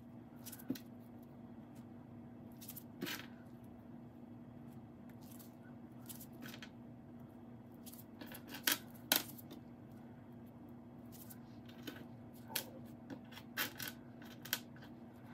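Small pieces of fire glass clinking and clicking as they are picked from a pile and tapped into wet epoxy on a wooden board: scattered light clicks, with a few sharper ones about nine seconds in and several more near the end.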